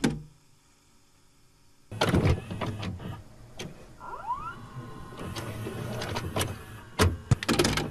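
Cassette tape player being handled: a run of mechanical clacks and rattles, a motor whining briefly up in pitch about four seconds in, and sharp clicks near the end.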